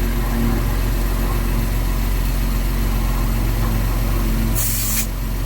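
Electric tyre inflator pump running steadily while it fills a car tyre toward a preset 35 psi, with a short burst of hiss near the end.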